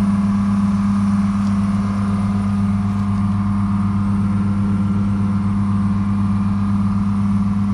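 Air compressor running with a steady, even hum that does not change.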